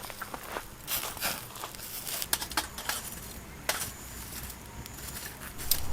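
Irregular crinkling and rustling with sharp, light clicks coming unevenly, some close together and some a second or more apart.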